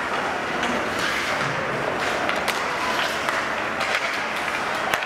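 Ice hockey game play: a steady wash of skates on the ice and spectators, with sharp clacks of sticks and puck several times, the loudest near the end.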